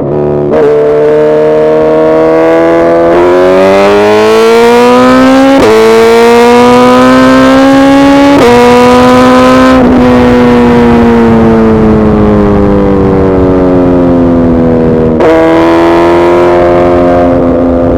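Suzuki Hayabusa Gen3's 1340 cc inline-four engine running hard. Its pitch climbs in several stretches broken by abrupt steps, then falls slowly for several seconds before another sudden step near the end.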